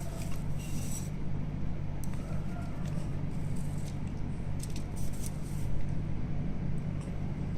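Steady low electrical-sounding hum, with a few faint ticks and rustles near the start and about five seconds in.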